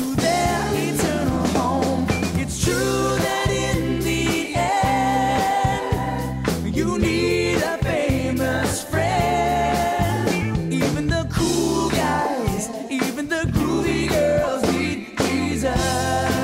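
Upbeat children's Christian worship song: a sung lead vocal over a band with a steady beat and a strong bass line.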